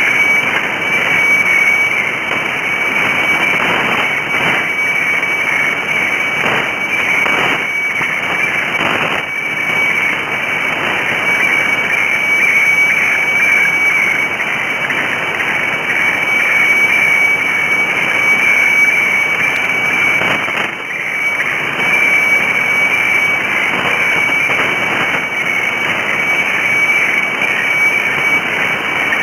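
Shortwave radiofax (HF weather fax) signal from Bangkok's HSW64 on 7395 kHz, heard through a radio receiver. A steady high whistle-like tone sits over a band of hissing, crackling fax modulation and static, with a brief dip in strength about 21 seconds in.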